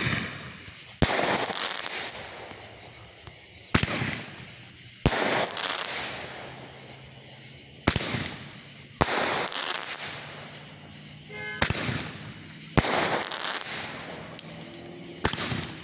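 Black Cat big-bore 'Boom Ball' candle firing shot after shot, about one every four seconds. Each shot is a sharp report as the ball leaves the tube, then a second bang about a second later, trailing off for a second or so. A last shot is launched near the end.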